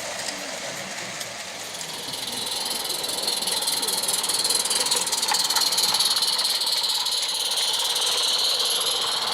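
A 16mm-scale live steam locomotive hissing steam, the hiss growing louder from about two seconds in.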